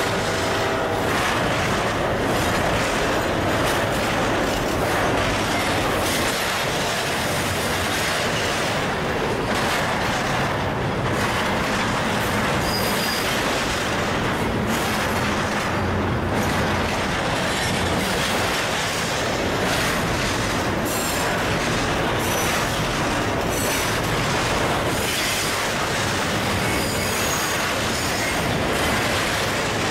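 Double-stack container cars of a long freight train rolling past: steady rumble and rattle of steel wheels on the rails, with brief faint high wheel squeals now and then.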